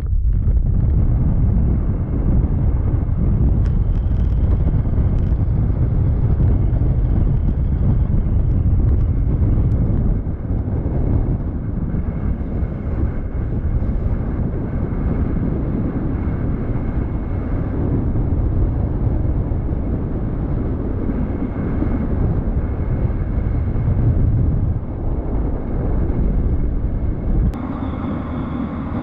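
Double-decker tour bus driving along a road, heard from its upper deck: a steady rumble of engine and road with wind rushing over the microphone, easing slightly near the end.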